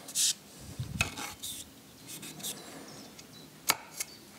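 A drill bit's shank being pushed and worked through the bolt holes of a homemade paper gasket on a water pump body: short scrapes and rubbing, with two sharp ticks near the end.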